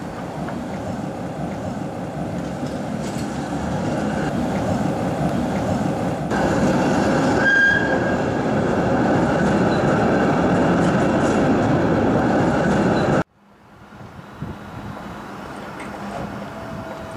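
Type E2 articulated tram with its trailer pulling away and passing close: a rumble of motors and wheels on rail that builds steadily, with a short high wheel squeal about seven and a half seconds in. The sound cuts off abruptly about thirteen seconds in, leaving a quieter, distant rumble.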